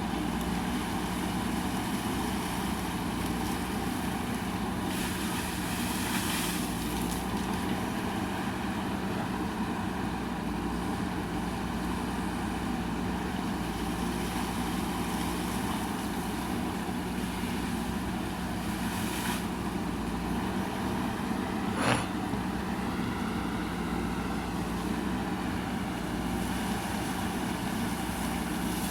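JCB backhoe loader's diesel engine running steadily, with one sharp knock about three-quarters of the way through.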